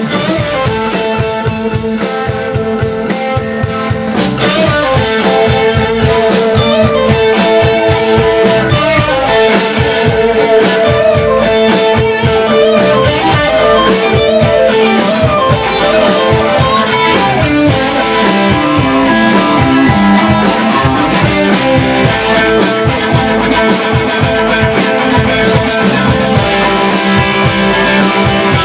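Live band playing electric guitars, bass and a drum kit to a steady beat, with long held guitar notes; the band gets louder and fuller about four seconds in.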